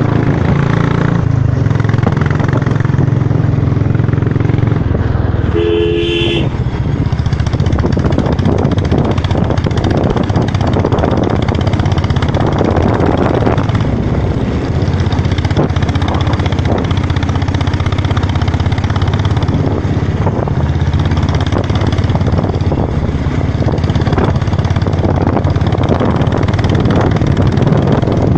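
Motorcycle engine running steadily while riding, with road and wind noise. About six seconds in, a horn gives one short beep.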